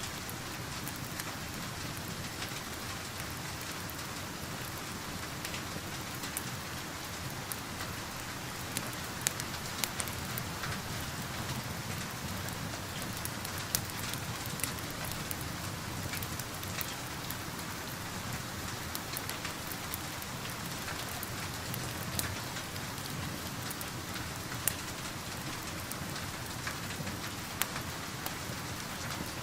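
Steady rain with a constant even hiss, over which a wood fire crackles: scattered sharp pops, a handful of them louder than the rest.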